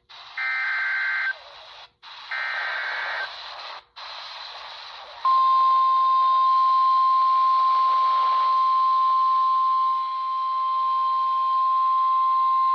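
Emergency Alert System SAME header from a NOAA Weather Radio broadcast, heard through a RadioShack 12-254 weather radio's speaker over static hiss: two short bursts of digital data tones, each about a second long. About five seconds in, the steady single-pitch 1050 Hz weather-radio warning alarm tone starts and holds, the signal that a warning such as this severe thunderstorm warning is being broadcast.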